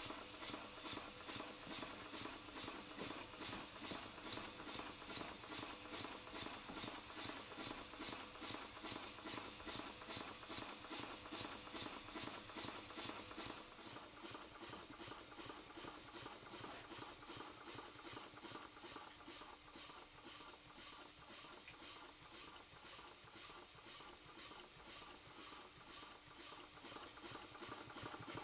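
Model Lincoln cross-compound steam engine running on compressed air: a regular beat of exhaust puffs, a few a second, over a steady hiss of air.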